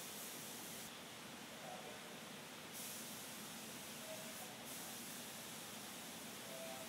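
Paint spray gun hissing faintly in a paint booth. The hiss stops for about two seconds roughly a second in and cuts out briefly again midway, over a steady low rush of air.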